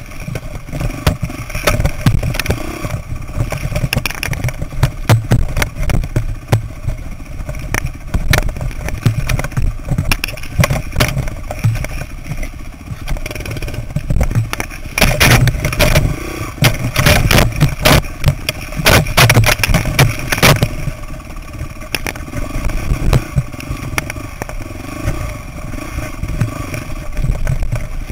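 Dirt bike engine running at low to moderate revs with the throttle rising and falling, under frequent sharp clattering knocks from the bike jolting over rough trail. The knocks come thickest in a cluster a little past the middle.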